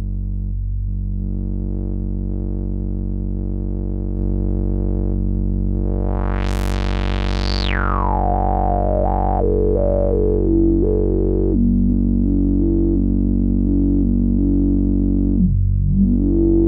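A Behringer Odyssey analogue synthesizer holds one low square-wave note through its two-pole filter, with the resonance at mid setting. About six seconds in, the cutoff is swept up to a bright, whistling resonant peak. It then comes down in steps, dips low near the end and rises again.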